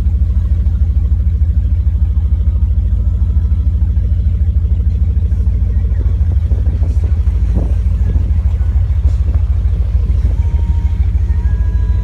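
Cobra 1160 motorboat's engine running steadily while cruising, a loud, even low rumble. A short rising sound comes in about seven and a half seconds in.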